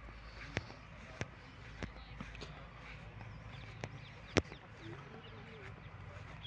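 Footsteps of someone walking over dry, grassy ground, each step giving a sharp tick: evenly spaced at first, then irregular, the loudest about four and a half seconds in. Faint bird chirps behind.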